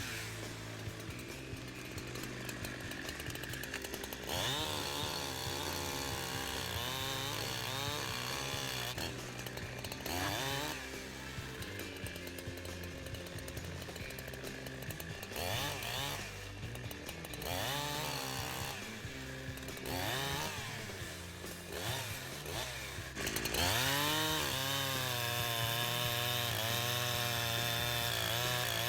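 Holzfforma G372XP two-stroke chainsaw revving up and dropping back again and again while bucking wood, its engine pitch swooping up and down. About two-thirds of the way through it goes to a long, louder, steady full-throttle cut.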